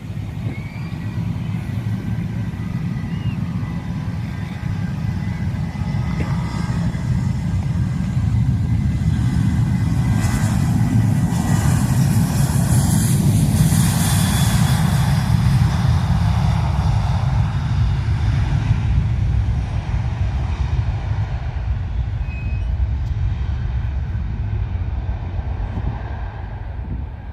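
Aircraft engines passing: a low rumble that builds to its loudest about halfway through, with a rushing hiss at the peak, then slowly fades away.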